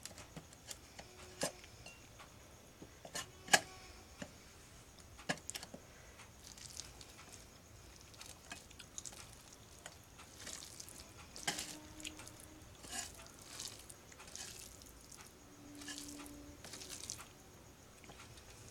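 Eating rice and curry by hand from stainless-steel plates: a few sharp clicks of fingers and food against the steel in the first seconds, one much louder about three and a half seconds in, then soft wet squishing as rice is mixed with curry by hand.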